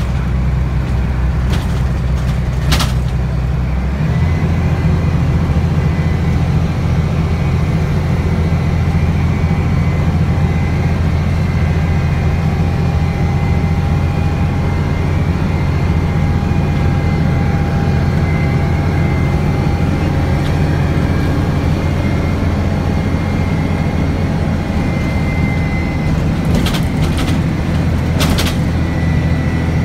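Inside a moving Karsan Avancity S Plus articulated city bus: the steady drone of the engine and running gear, which changes pitch about four seconds in. From then on a faint whine rides over the drone. A few sharp clicks or rattles come near the start and again near the end.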